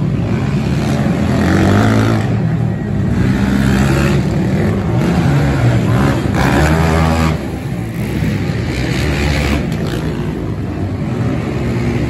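Several ATV (quad) engines racing on a dirt track, revving up and down in turn as the riders accelerate and back off around the cones.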